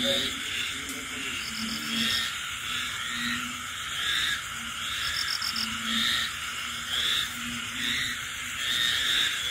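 A night chorus of frogs and insects: a deep frog croak repeated every second or so over a dense, steady chorus of higher calls, with short fast trills now and then near the top.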